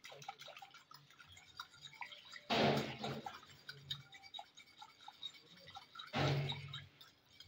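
Metal fork beating milk in a glass bowl: light clicking and sloshing, with two louder swishing bursts, about two and a half seconds in and again about six seconds in.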